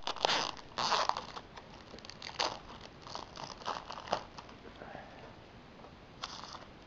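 Clear plastic shrink-wrap being torn and peeled off a metal Blu-ray SteelBook case, crinkling in irregular bursts. The loudest crackles come in the first second or so, fainter ones follow, and there is one more short burst near the end.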